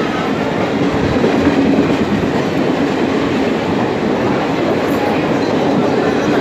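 Passenger train's coaches running past at speed: a steady rumble with wheels clattering over the track.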